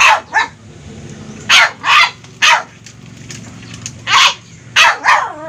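A dog barking: about eight short, sharp barks in three quick clusters.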